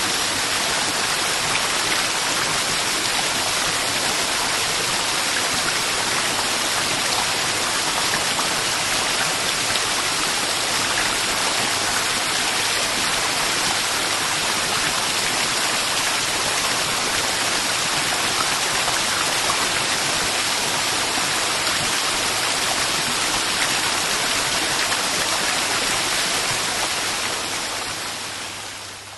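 Waterfall: steady rushing, splashing water, fading out near the end.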